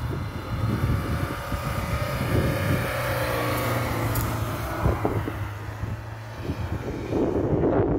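Lada Niva engine running as the car ploughs through deep snow, its revs changing, with wind gusting on the microphone.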